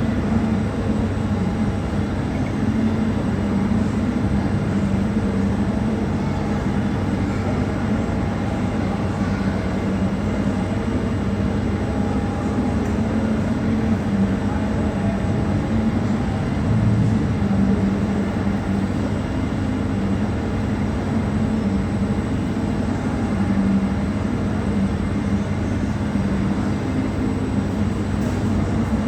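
Jet airliner engines running steadily, the sound holding an even level with no sudden changes.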